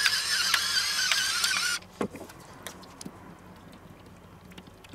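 Electric pepper mill grinding peppercorns, its small motor giving a steady high whine that cuts off abruptly about two seconds in. A few faint light taps follow.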